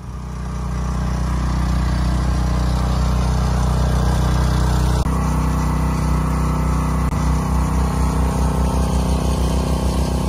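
A small engine running steadily at idle. The sound shifts abruptly about five seconds in, and after that a regular pulsing beat shows in the low end.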